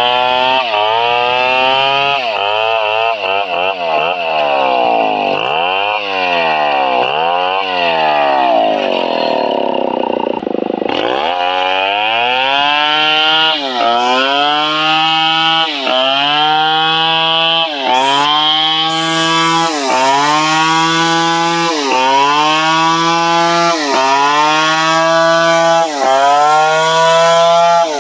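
Stihl 720 chainsaw's two-stroke engine running hard, its pitch climbing and falling again about every second and a half as the revs pick up and drop. Partway through it wavers faster, then sags low before climbing back.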